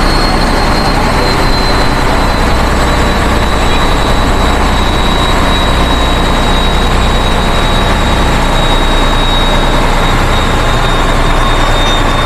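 Boat engine running steadily and loudly, with a thin high whine that slowly drops a little in pitch.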